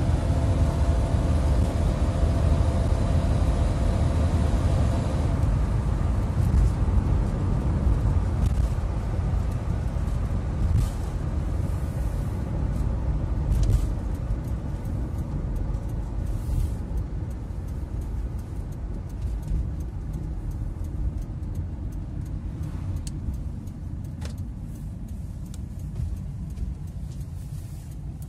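Cab interior noise of a 1996 Fiat Ducato 2.5 TDI motorhome on the road: the turbodiesel engine drones under road and wind noise. The engine's hum drops out about five seconds in, and the whole sound gradually eases as the van slows from around 100 km/h. A few faint clicks come in the second half.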